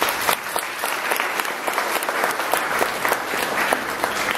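Audience of schoolchildren and adults applauding, many hands clapping at a steady level.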